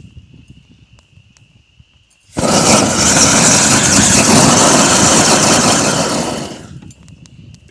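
Oil- and propane-fed fire in a drilled-out stump flaring with a sudden loud rushing blast about two seconds in, lasting about four seconds before dying down. A faint steady high whine sounds before and after the blast.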